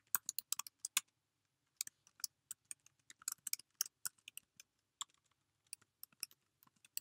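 Computer keyboard being typed on: irregular runs of key clicks, with a pause of under a second about a second in, and sparser keystrokes near the end.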